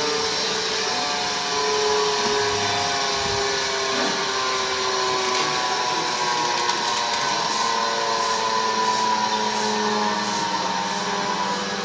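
Crankshaft grinder running: a steady machine whine with several held tones that drift slowly in pitch.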